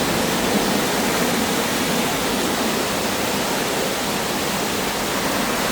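Steady rush of a large volume of water pouring through the set: the staged flood of a theme-park earthquake ride.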